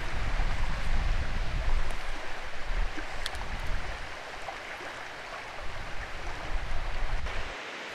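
Shallow trout brook flowing steadily around a wading angler, with a low rumble on the microphone that is heaviest in the first half and eases off about halfway through.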